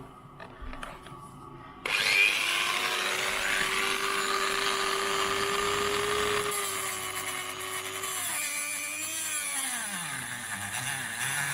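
Dremel rotary tool starting up about two seconds in and running with a steady high whine and hiss as it cuts at an aluminium wiper arm corroded onto its spindle. Its pitch drops sharply about eight seconds in, then picks up a little near the end.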